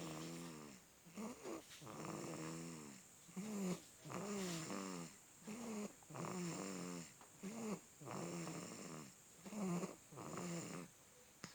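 A small sleeper snoring in a steady rhythm of about six breaths. Each breath is a long pitched snore that rises and falls, followed by a short one. The snoring stops about half a second before the end.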